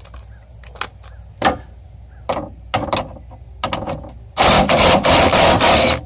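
A few metal clicks and knocks as a socket goes onto a bolt, then a Snap-on 14.4-volt 3/8-inch cordless gun runs loudly for about a second and a half, near the end, backing out a door bolt on the window regulator.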